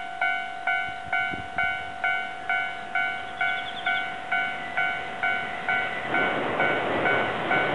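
Japanese railway level-crossing warning bell ringing steadily, about two strikes a second. From about six seconds in, the rumble of an approaching freight train hauled by an EF510 electric locomotive rises beneath the bell.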